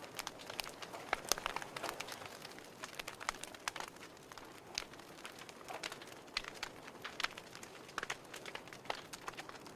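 Wood fire crackling: irregular sharp snaps and pops, several a second, over a soft hiss.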